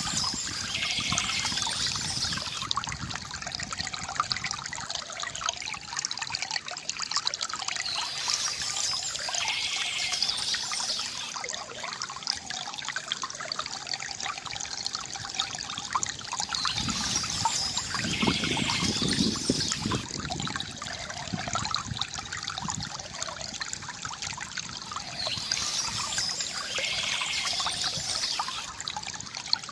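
Water trickling and gurgling from a bamboo fountain, continuous, with a brighter swell coming back about every eight or nine seconds.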